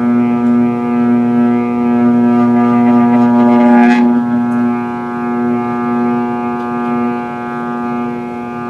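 Breville food processor motor running steadily under load as it kneads a thick, sticky tapioca-and-cheese dough, a loud hum with a brief change in tone about four seconds in.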